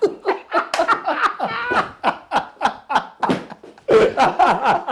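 Hearty human laughter in quick, repeated bursts, a reaction straight after a chiropractic neck adjustment.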